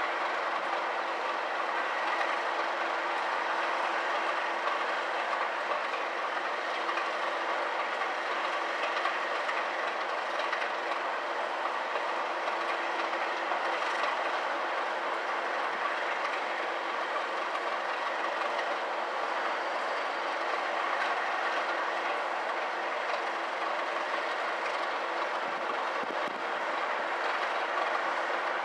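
Train hauled by Class 37 diesel locomotives, with their English Electric V12 engines, running past at a steady distance. The engine and wheel-on-rail noise holds at an even level, with a few steady engine tones under it.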